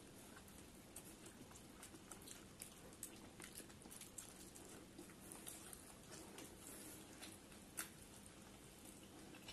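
Faint chewing and small wet mouth clicks of two people eating momos by hand, with one sharper click near the end.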